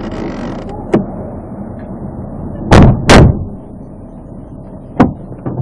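Patrol car doors being shut: two loud slams less than half a second apart, with lighter clicks about a second in and near the end.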